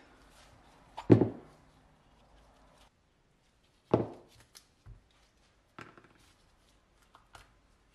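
Metal brake caliper parts knocked and set down on a workbench during disassembly: a loud clunk about a second in, another about four seconds in, then a few lighter knocks.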